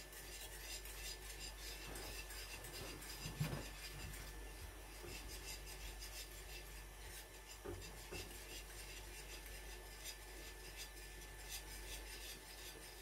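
A spoon stirring and scraping around the bottom of a saucepan of custard cream, a faint steady rasping in even strokes, with one louder bump about three and a half seconds in. The cream is starting to thicken and is being stirred without a pause.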